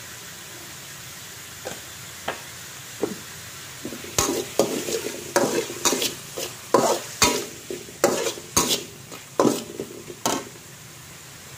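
Steel spatula scraping and clanking against a thin stainless-steel wok while stir-frying minced meat: a few light taps at first, then about six seconds of quick, repeated strokes, roughly two a second, that stop near the end.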